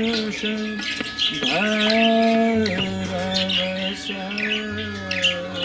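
Budgerigars, cockatiels and Java finches chirping and twittering in quick short calls. Background music with long held notes that slide between pitches plays under them.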